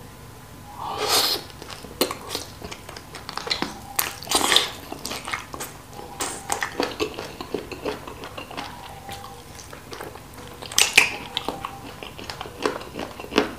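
Close-miked eating of sauce-coated chicken feet by hand: irregular wet chewing, biting and mouth clicks, with louder wet bursts about a second in, around four and a half seconds and near eleven seconds.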